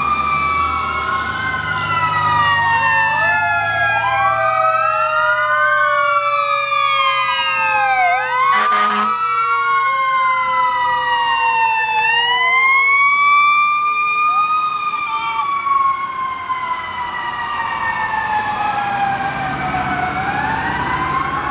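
Several fire truck sirens wailing at once, their pitches rising and falling and crossing each other, with truck engines rumbling low in the first half. About nine seconds in, a short loud blast cuts across them.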